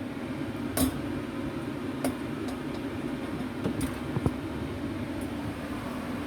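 Steady low mechanical hum with a few scattered light clicks and knocks.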